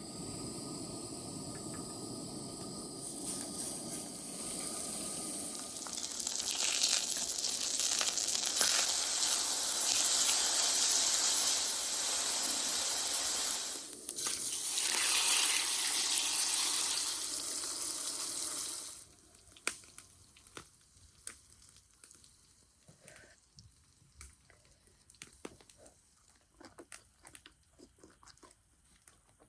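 A steady hissing rush that builds over several seconds, breaks off briefly, then stops suddenly; faint scattered clicks follow.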